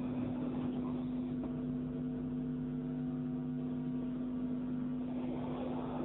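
Steady electrical hum: a low, unchanging tone with a few fainter higher tones above it.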